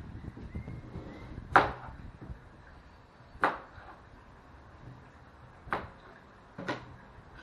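Kitchen knife knocking down onto a cutting board while cutting limes in half: four sharp knocks, irregularly spaced a second or two apart.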